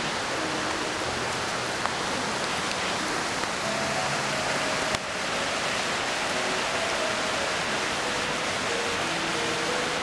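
Rushing water of a rocky mountain stream, a steady loud hiss that breaks off briefly about halfway through. Soft background music lies faintly beneath it.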